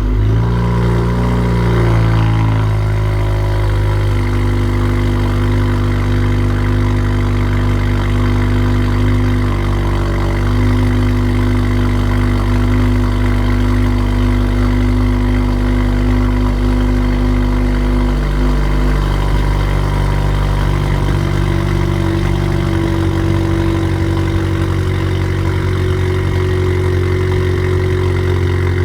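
A 2019 Honda Accord Sport's 1.5-litre turbocharged four-cylinder idles on a cold start through a PRL front pipe and downpipe with the muffler and resonator deleted. The revs flare at start-up, settle within the first couple of seconds, and then hold a steady high cold idle with a loud, deep exhaust note.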